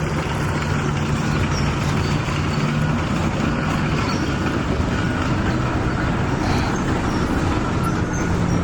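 A motor running steadily with a low hum, over a constant rushing noise.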